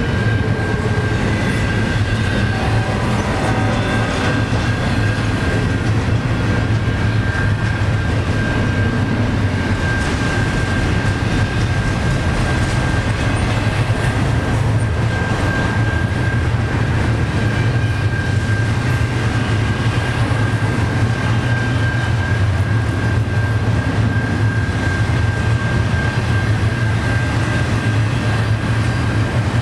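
Double-stack intermodal well cars rolling past at speed: a loud, steady rumble and rattle of steel wheels on rail, with a steady high tone running over it.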